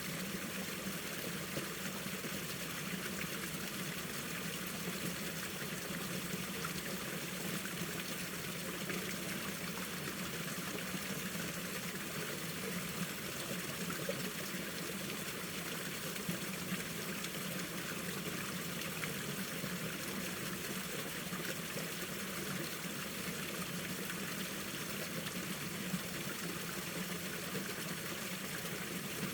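Mountain valley stream flowing steadily, an even, unbroken rush of running water.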